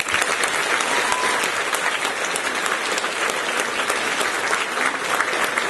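Audience applauding: dense, many-handed clapping that sets in at once and holds steady.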